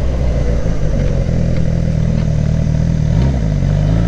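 Suzuki GSX-R1000 K7's inline-four engine running steadily under way. Its note dips and recovers briefly a little past three seconds in.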